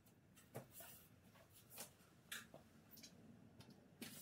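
Near silence with about half a dozen faint, short knocks and clicks as the frame of a delta 3D printer is turned over and stood upright on a workbench.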